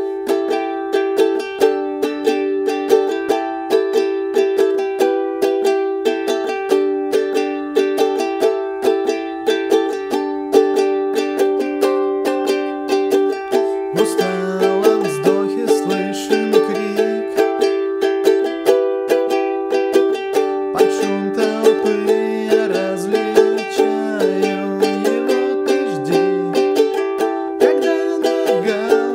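Ukulele strummed in a steady rhythm, with its chords changing. About halfway through, a man's singing voice joins the ukulele.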